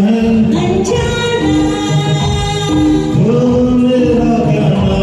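A Hindi film song sung over a backing track, with long held notes that swoop up into each tone.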